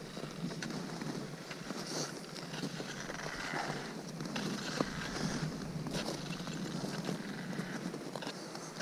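Footsteps crunching on hard snow with a few sharp clicks, over steady wind noise on the microphone.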